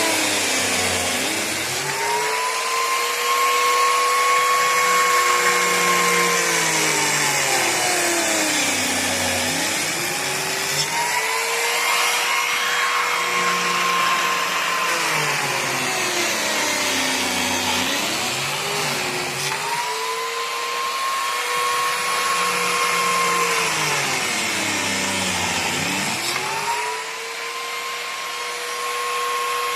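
Electric power tool's motor running steadily at a high pitch with a hiss of cutting. Its pitch sags for a couple of seconds about every eight or nine seconds as it bogs under load in the wood, then winds back up.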